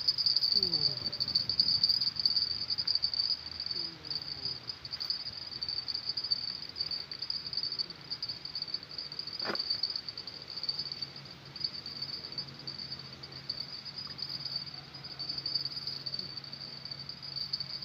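A steady, high, pulsing insect chorus, with one sharp click about nine and a half seconds in.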